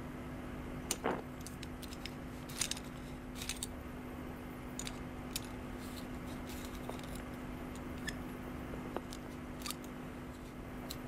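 Small metallic clicks and ticks as a gramophone's tone arm is handled and swung into place, scattered irregularly over a faint steady hum.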